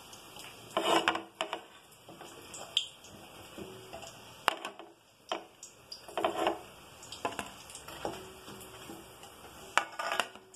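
Steel slotted spoon knocking and scraping against a steel kadai as fried vadas are lifted out of the oil, with a few clinks against a plate: a string of separate clatters, some with a short metallic ring.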